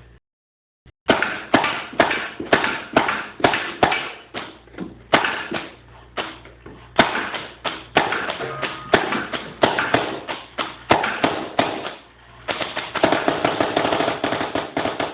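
Paintball gun firing rubber reballs in a rapid string of sharp shots, about two to three a second. The shots come faster and closer together near the end.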